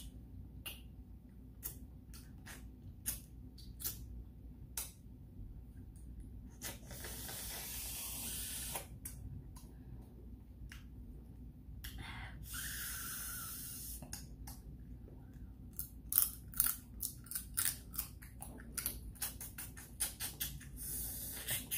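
Close-miked mouth sounds of eating with the fingers: wet lip smacks and chewing clicks throughout, with two longer sucking hisses, about seven and twelve seconds in, as meat and sauce are sucked from small bones and fingers.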